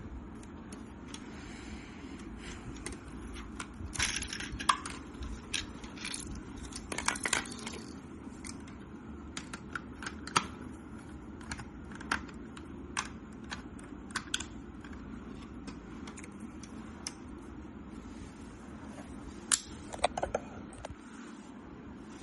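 Hard plastic clicks and rattles of a Lego brick rifle model being handled, scattered and irregular, with short clattering runs about four and seven seconds in and again near the end.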